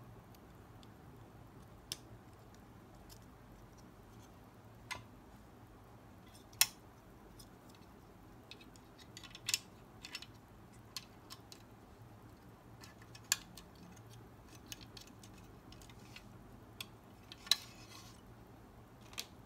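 Small plastic and die-cast parts of a 1:24 scale model car clicking and tapping as they are handled and pressed together: about a dozen sharp, scattered clicks over a quiet room hum, with a short rustle near the end.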